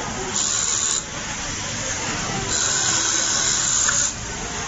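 IMB MB8024 automatic pocket-attaching sewing machine running its cycle: two abrupt bursts of hiss, a short one about half a second in and a longer one of about a second and a half near the end, over steady factory noise.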